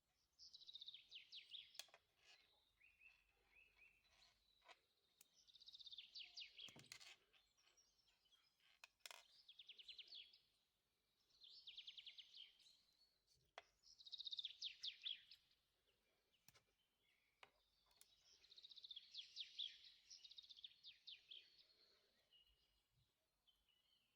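Faint songbird trills: short rapid phrases that drop in pitch, repeated every few seconds, with a few sharp clicks between them.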